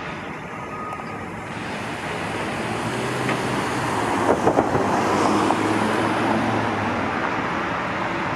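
Road traffic, with a passing vehicle that grows louder to a peak about halfway through and then eases off, its engine hum audible, and a few short knocks near the middle.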